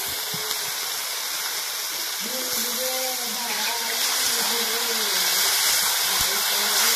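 Masala of tomato, ginger-garlic paste and turmeric frying and sizzling in a black metal kadai as it is stirred with a spatula. The hiss of the frying grows louder about four seconds in, as steam billows off the pan.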